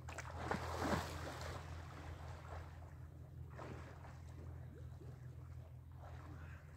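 Lake water splashing, loudest in the first second or so, with fainter splashes later, over a steady low rumble.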